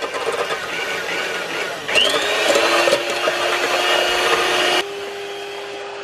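Breville Twin Motor electric hand mixer running, its beaters whisking chilled liquid whipping cream in a steel bowl to bring it to soft peaks. The motor gets louder about two seconds in with a short rising whine, then drops to a quieter, steadier hum near the end.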